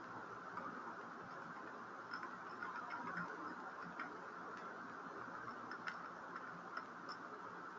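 Faint computer keyboard keystrokes, a few irregular clicks, over a steady background hiss.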